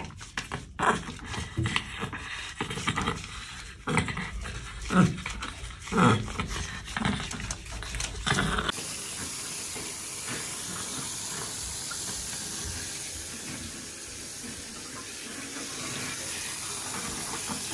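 Short, irregular bursts of wet handling as a chihuahua puppy is lathered in a bathtub, then, after a sudden change about halfway, a handheld shower head spraying water with a steady hiss.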